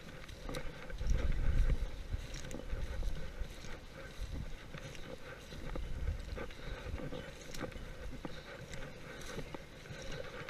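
Footsteps through tall dry grass, the stalks swishing and crackling against legs and camera, with low rumbling buffets of wind on the microphone, strongest about a second in and again near six seconds.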